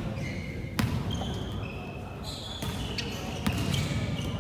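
A volleyball smacking against hands and the hardwood gym floor, about three sharp hits, with short high squeaks of sneakers on the court, echoing in a large sports hall.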